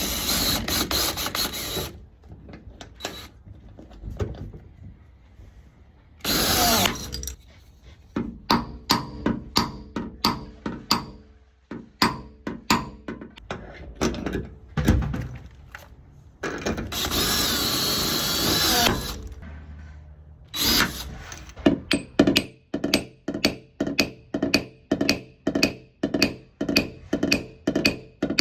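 Cordless drill running in short bursts, one spinning up with a rising whine, driving a steel bridge puller that lifts a glued tab to pull a dent. Between the bursts comes a steady tapping beat of about two per second.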